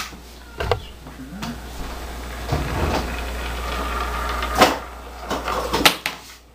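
A few sharp knocks and clunks of things being handled or set down: one about a second in, then a louder pair near the end.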